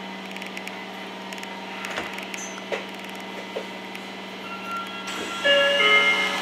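Tokyo Metro Namboku Line subway train coming to a stop at a station: a steady electric hum with a few clicks and knocks. About five seconds in, a hiss starts and a short run of electronic chime tones sounds.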